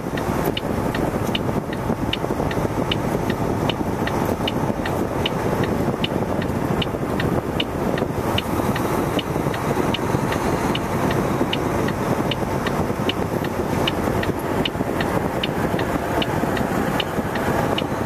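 Semi truck's diesel engine running steadily while the rig reverses into a parking spot, with a short high beep repeating evenly about two and a half times a second.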